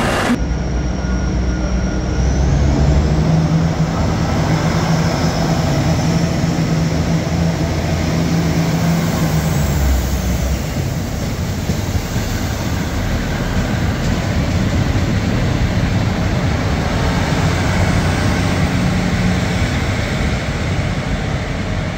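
Diesel railcar running, with steady running noise. The engine note rises a couple of seconds in and eases off around ten seconds.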